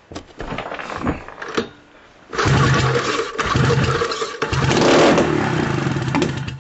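Sachs 303 rotary (Wankel) snowmobile engine being started: a second and a half of irregular knocks, a short pause, then the engine catches about two seconds in and runs unevenly for about four seconds before cutting out abruptly. It is loading up with fuel as it runs.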